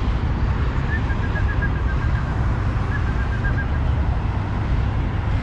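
Road traffic passing: a steady noise, heaviest in the low end. About one and three seconds in, two brief, faint runs of a high pulsing tone can be heard.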